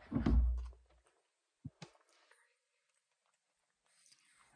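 A person taking a spoonful of beef stew: a short mouth sound as the spoon goes in during the first second, then two tiny blips and quiet chewing.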